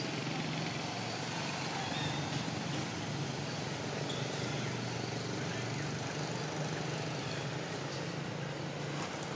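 A steady low hum over constant background noise.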